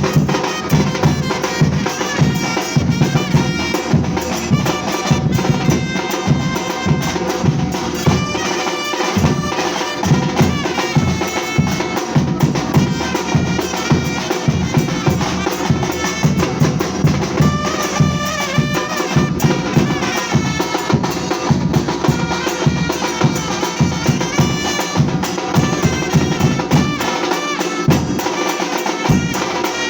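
Batucada percussion ensemble playing a steady driving drum rhythm, with a held wind-instrument melody over the drums.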